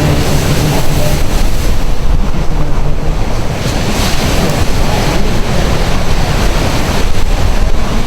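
Large ocean surf breaking and washing in as a steady, loud noise, with wind buffeting the microphone.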